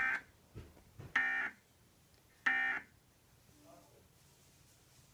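Emergency Alert System end-of-message (EOM) data tones from a television: three short, buzzy digital bursts about 1.3 seconds apart, marking the end of the alert test.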